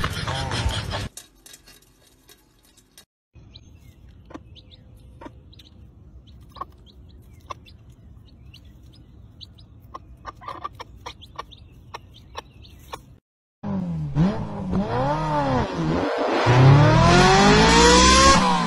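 Scattered short peeps from young chicks over a faint background. About fourteen seconds in, a much louder engine-like sound starts, revving down and up in pitch.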